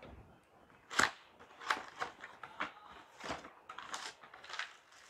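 A cardboard product box and its plastic wrapping being handled and opened: a string of sharp rustles and taps, the loudest about a second in.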